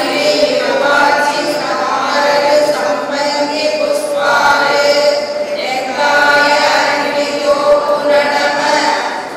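A group of women chanting a prayer together in unison, one of them into a microphone, going on without a break.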